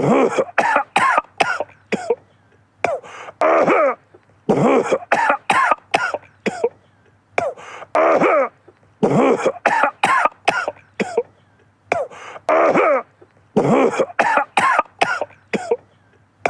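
A man coughing over and over in fits, each a quick run of several harsh, voiced coughs followed by a short pause before the next fit.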